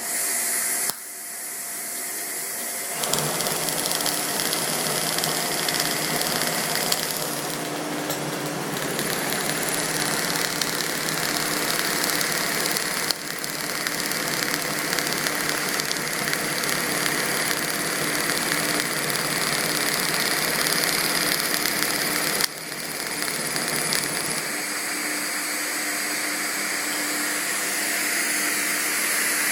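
TiPTiG hot-wire TIG welding on titanium: the arc and wire feed make a steady hiss with a faint hum, starting about three seconds in after a short burst at the start, with a brief break about twenty-two seconds in.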